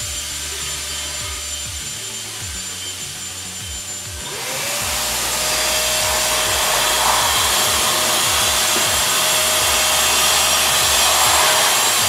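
Ceiling fan running: the steady rush of air and hum of the motor. About four seconds in, the sound grows louder and a hum rises in pitch, then holds steady.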